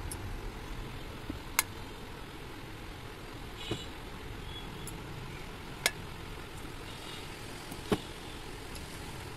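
Four sharp metal clicks, about two seconds apart, from a hand tool working on the valve parts of a Toyota cylinder head during valve fitting. A steady low background rumble runs underneath.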